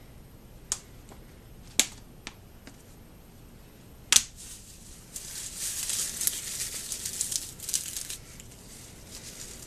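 A few sharp clicks and knocks of plastic bottles being handled on a workbench, the loudest about four seconds in, then about three seconds of crackling rustle as a handful of dry straw is gathered and worked in gloved hands.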